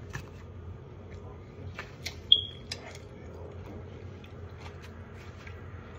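Mouth chewing and smacking on a BLT sandwich: scattered short wet clicks and smacks, the loudest about two seconds in.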